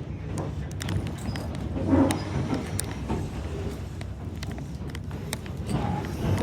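Narrow-gauge railroad passenger car rolling along the track: a steady low rumble with scattered clicks and knocks from the wheels and the car body.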